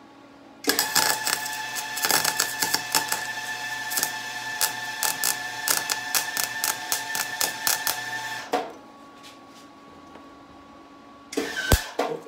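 MIG welder laying a bead: a dense crackling sizzle over a steady hum for about eight seconds, then a short second burst near the end. The bead is being welded around a steering head bearing race so the race can be punched out.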